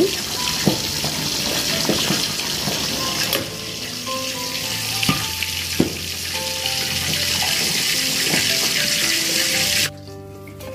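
Spinach and carrot soup at a rolling boil in a saucepan, a steady bubbling hiss, with a spoon stirring and knocking against the pan a few times. The bubbling cuts off suddenly near the end.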